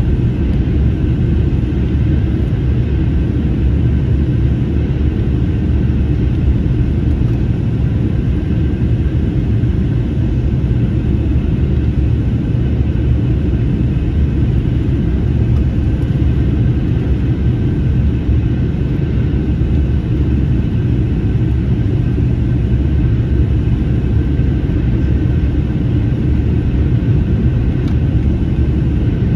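Steady rumble inside the cabin of an Airbus A321neo in flight: its Pratt & Whitney PW1100G geared turbofans and the rush of air past the fuselage, with a few faint steady tones above the low rumble.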